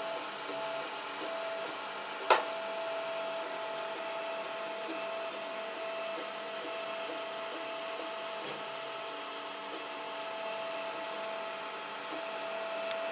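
3D printer running, a steady whir of its fans and motors with a steady tone, and one sharp click about two seconds in.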